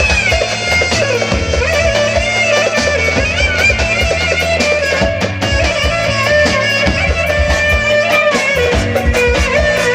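Instrumental Roman havası dance music: a winding, ornamented lead melody over steady bass notes and a regular drum beat.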